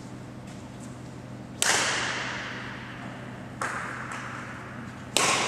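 Badminton racket striking a shuttlecock three times, about two seconds apart, the first and last hits the loudest, each sharp crack echoing through the large sports hall.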